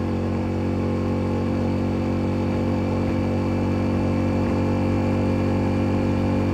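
Motorcycle engine and exhaust running at a steady speed while riding, picked up close to the exhaust by a phone tucked in the pillion seat and wrapped in a wool sock.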